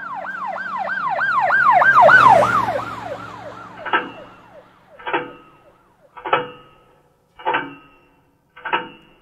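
An emergency-vehicle siren in a fast yelp, rising and falling about four times a second, swells louder and then fades away over about three seconds. Then come five sharp struck hits about a second apart, each ringing briefly.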